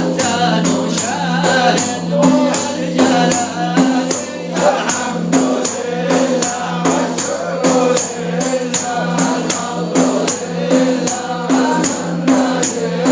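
Sufi devotional chant: voices singing over frame drums with jingles beating a steady rhythm.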